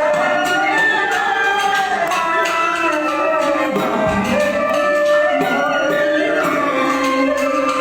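Chèo (Vietnamese traditional folk opera) singing with traditional instrumental accompaniment, over a steady beat of clicking percussion.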